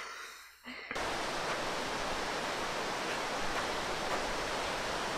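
Steady rush of a fast-flowing white-water river, starting suddenly about a second in and holding at an even level.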